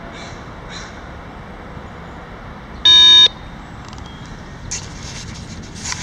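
A single loud electronic beep, about half a second long, three seconds in, from a Whistler handheld radio scanner. Two short bird calls come near the start, and there are handling clicks and rustles near the end.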